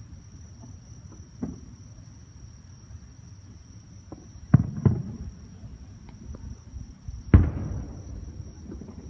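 Fireworks shells bursting: a faint pop about a second and a half in, two sharp bangs close together around four and a half seconds in, and the loudest bang a little after seven seconds, with a rumbling echo trailing off after it.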